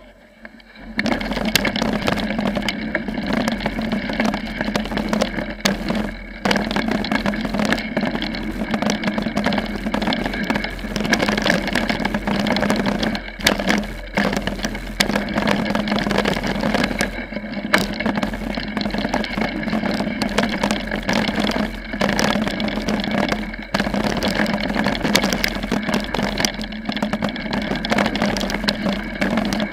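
Steady rushing and rattling noise on a bike-mounted action camera riding a dirt four-cross track: wind and tyres rolling over packed dirt, starting about a second in with a few brief dips.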